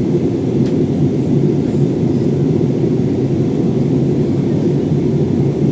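Steady low rumble of airliner cabin noise, engine and airflow, heard from inside the cabin during the descent.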